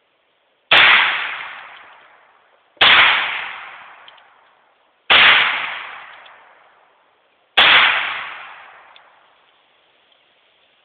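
Four shots from a .44-calibre revolver, fired about two to two and a half seconds apart, each ringing out and fading over a couple of seconds.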